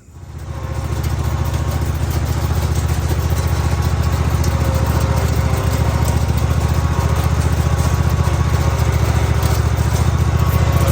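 Riding lawn mower engine running steadily while it pulls a tow-behind lawn dethatcher. The sound fades in over the first second.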